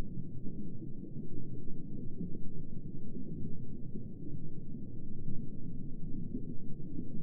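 Underwater ambience as heard while submerged: a steady, muffled low rumble with no high sounds, swelling and easing slightly in loudness.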